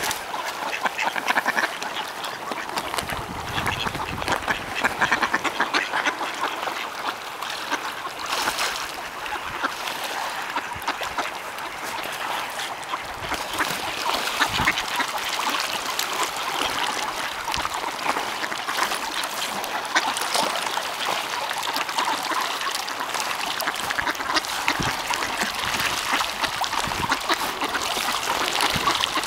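A crowded flock of wild ducks quacking and splashing on the water as they scramble for scattered feed, a dense unbroken clamour throughout.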